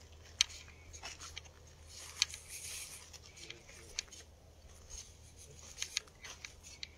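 Faint footsteps scuffing slowly over dry dirt, with scattered light clicks and a low steady hum underneath.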